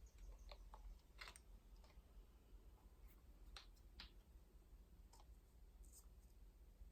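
Near silence with a low hum and about half a dozen faint, scattered clicks of small objects being handled, such as a toothpaste tube and its cap.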